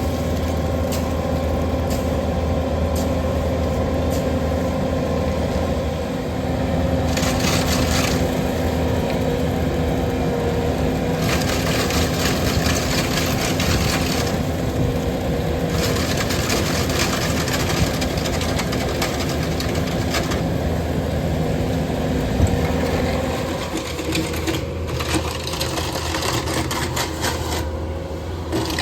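An engine running steadily at a constant speed, its note shifting about 24 seconds in. A hiss comes and goes over it every few seconds.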